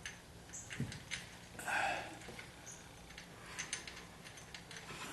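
Faint scattered clicks and light scraping of small metal parts being handled while fitting a speedometer cable and its mounting bracket, with one longer scrape about two seconds in.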